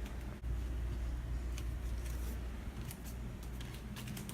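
Steady low hum with a few faint ticks.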